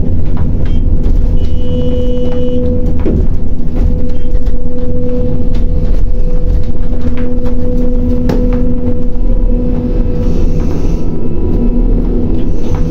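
Crane machinery running steadily while the grab is lowered: a loud low rumble with a steady hum, and a few faint clicks.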